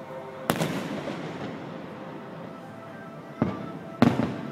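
Aerial firework shells bursting: one sharp bang about half a second in, then two more close together near the end, the last the loudest, with an echoing tail after the first and last. Music plays steadily underneath.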